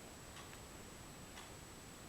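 Faint ticking of a clock, about one tick a second, with a softer extra tick now and then, over a steady faint high-pitched whine.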